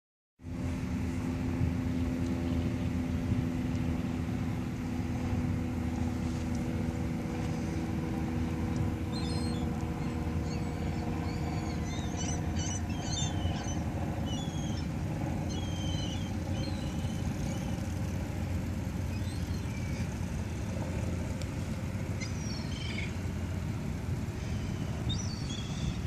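Steady low rumble of city traffic, with an engine hum that fades away about halfway through. Gulls give short calls now and then over it in the second half.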